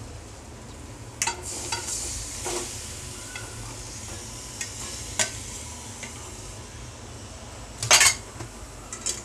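Chicken and masala sizzling in a steel kadhai while a steel spatula scrapes and clinks against the pan, the clinks scattered through and loudest in a short cluster near the end.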